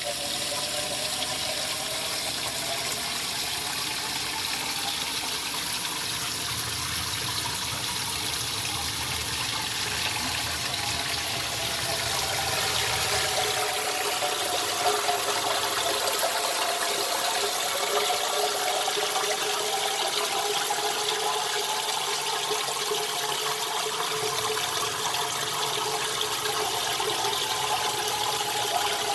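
Water gushing and churning steadily in a basement sump pit during flooding, with the sump pump running at high flow. The rush grows a little louder about twelve seconds in.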